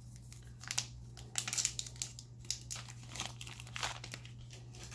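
Foil wrapper of a trading card pack crinkling in irregular, crackly bursts as it is handled.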